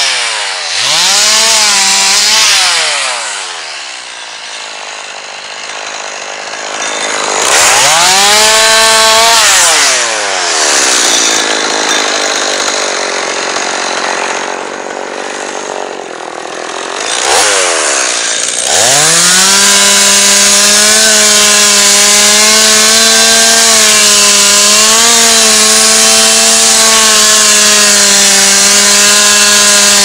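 Two-stroke chainsaw revving up in short bursts and dropping back to idle several times, then held at steady full throttle for the last third while it cuts into a tree trunk at its base.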